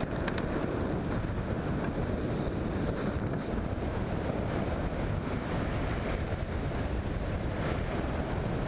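Steady wind rushing over a helmet camera's microphone as a skydiver descends under an open parachute canopy.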